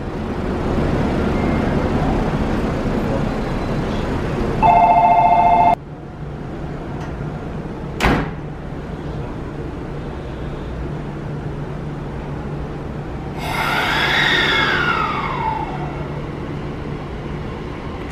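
315 series electric train standing at a platform, a steady low hum under the station noise. About five seconds in, a loud two-tone electronic buzzer sounds for about a second, and a single sharp clack follows about three seconds later. Near fourteen seconds a whine rises and then falls as the train sets off.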